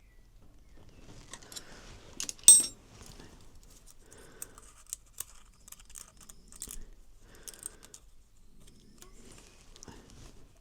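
Small metal hand tools clinking and clicking against the engine while a valve clearance is adjusted with a spanner, adjuster tool and feeler gauge: one sharp ringing clink about two and a half seconds in, then lighter ticks and handling noise.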